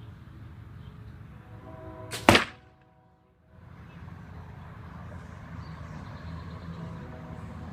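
A single arrow shot from a bow: one sharp crack about two seconds in, with brief pitched ringing around it, over a steady low rumble.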